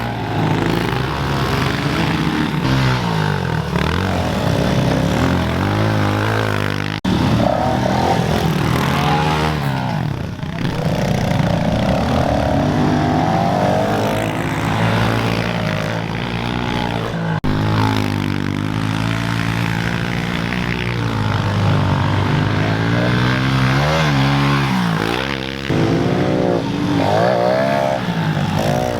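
Small four-stroke pit bike engine revving up and down as the bike is ridden hard around a dirt track, its pitch rising and falling over and over with each twist of the throttle and each shift. The sound breaks off suddenly and picks up again a few times.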